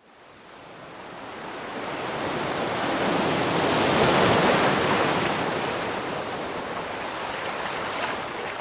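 A steady rushing noise with no tone in it, like surf or wind, that swells up from silence over about four seconds and then slowly fades.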